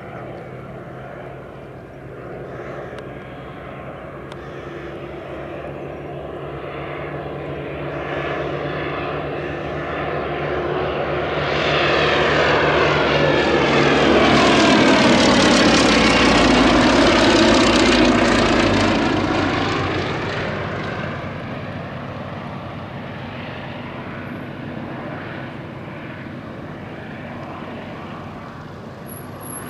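Two Westland Lysander IIIAs in flight, their Bristol Mercury nine-cylinder radial engines running steadily. The sound swells to its loudest about halfway through as one aircraft passes low and close, with a sweeping, phasing quality, then fades away again.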